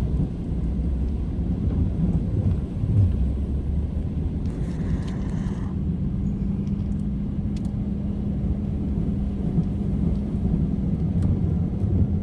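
A car driving, with low engine and road rumble. A steady hum sets in about halfway through, and a brief hiss comes about four and a half seconds in.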